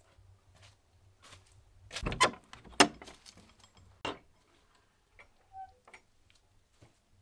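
Scattered sharp knocks and clicks. The loudest come as a cluster about two seconds in, a single hard knock just after it, and another knock about four seconds in.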